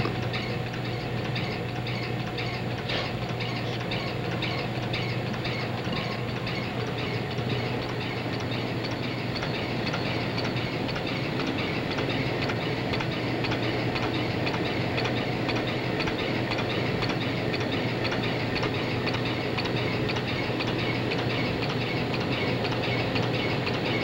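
Sound spectrograph running as it draws a spectrogram on the paper on its drum: a steady hum with a fast, even clicking.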